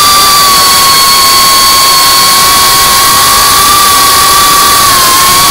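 GEPRC CineLog35 3.5-inch FPV drone's motors and propellers whining steadily in flight, heard from on board. The pitch sags slightly near the end.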